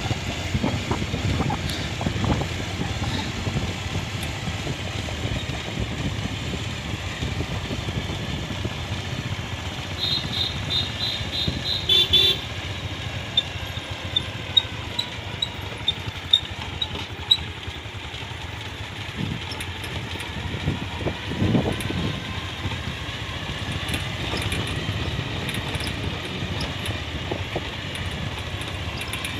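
Motorcycle running steadily while being ridden, with a brief horn beep about twelve seconds in.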